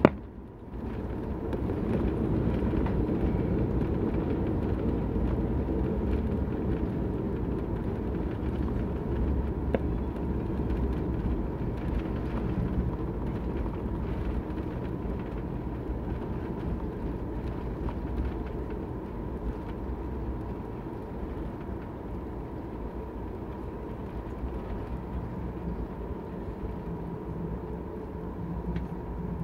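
Inside the cabin of a Boeing 737 MAX 8 on landing: a sharp thump as the wheels touch down, then a loud, low rumble of the CFM LEAP-1B engines and runway builds about a second later and slowly eases as the jet slows on its landing roll, with a faint steady whine underneath.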